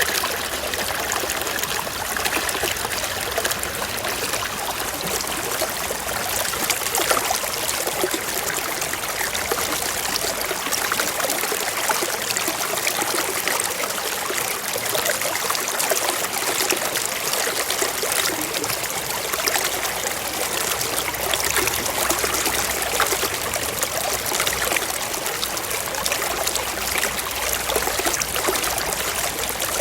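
Small stream running over rocks: a steady, even trickling and burbling of water.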